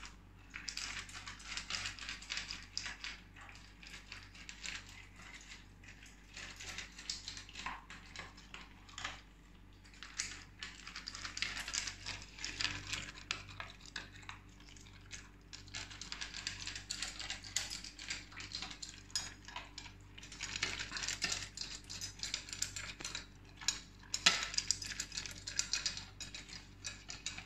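A dog eating dry kibble fast from a stainless-steel bowl: constant crunching, with the kibble clinking and rattling against the metal.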